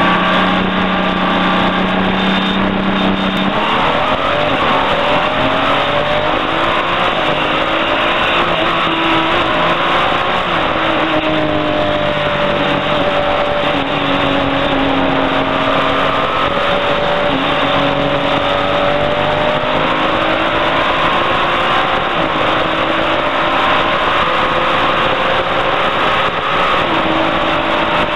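Race car's engine heard from inside the cabin. It holds a steady note for the first few seconds, then accelerates through the gears, the pitch climbing and dropping back at each shift, over a steady rushing noise.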